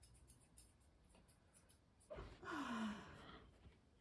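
A single breathy sigh about two seconds in, its voiced part falling in pitch, after a few faint clicks of grooming scissors.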